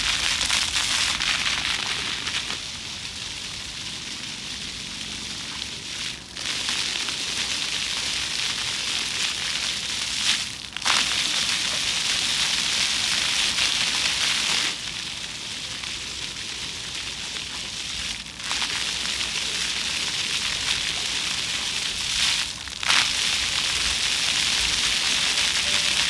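Floor fountain's water jets splashing onto wet paving stones, a steady spatter whose level drops and swells several times, with short dips about six, ten, eighteen and twenty-two seconds in.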